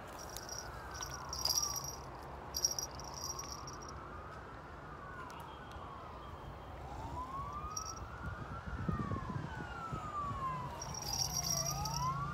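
Emergency-vehicle siren wailing, its pitch rising and falling in slow sweeps a few seconds long; partway through a second siren joins, wailing out of step with the first.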